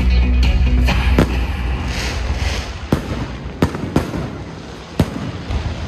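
Fireworks display going off: five sharp bangs of bursting shells over a crackling haze, the loudest about a second in. Bass-heavy show music plays at the start and fades soon after.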